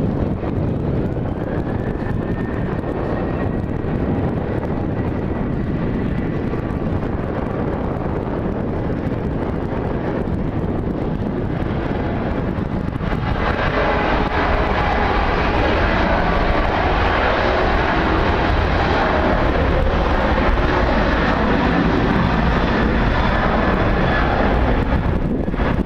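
CFM56 jet engines of a Boeing 737-800 running at takeoff power during the takeoff roll: a steady, loud rushing noise with a fan whine that rises in pitch about a second in. The sound grows louder and brighter about halfway through.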